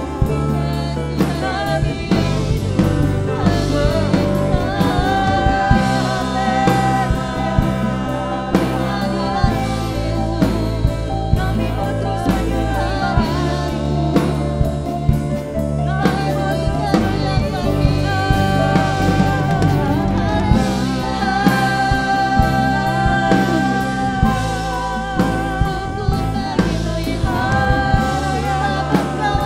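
Worship band playing a gospel song, with a lead voice singing sustained melodic lines over keyboard, bass and a drum kit keeping a steady beat.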